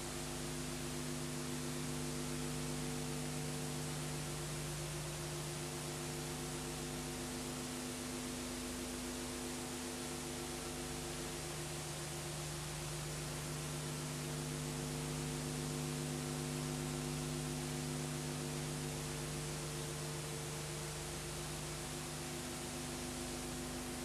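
Steady electrical mains hum with hiss, a couple of its upper tones dropping out briefly now and then.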